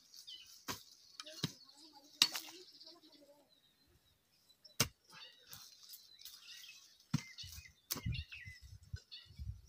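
Hand hoe blade striking into soil, about six sharp chops spaced unevenly, with birds chirping faintly.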